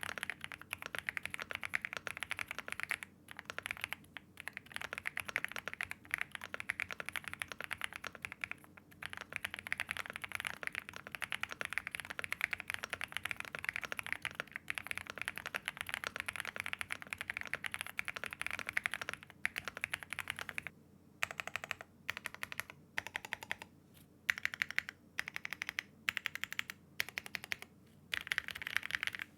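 Velocifire INFI75, a foam-filled, gasket-mounted 75% mechanical keyboard with double-shot PBT keycaps, being typed on in a fast, continuous stream of foamy keystrokes. After about twenty seconds the typing breaks into short runs with brief pauses between them.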